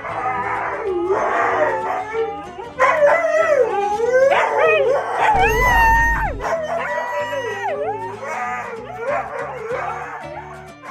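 A dog howling and yowling in long calls whose pitch slides up and down, with background music underneath.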